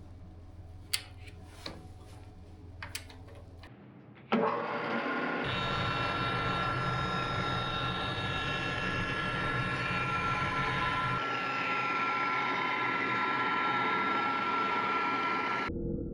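A few light clicks and knocks, then about four seconds in a table saw motor starts with a sudden jump and runs steadily with a high whine, its pitch dipping slightly in the middle as it cuts a board. The sound stops abruptly near the end.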